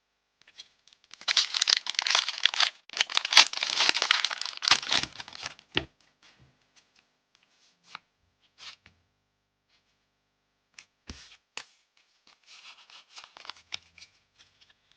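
Foil wrapper of a Pokémon TCG booster pack torn open in a long rip lasting about four seconds. A few light clicks follow, then a softer crinkling near the end as the pack and cards are handled.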